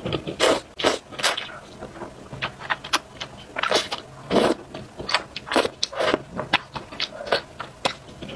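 Close-miked slurping and chewing of potato-starch noodles in a spicy sour soup, in short, irregular wet bursts.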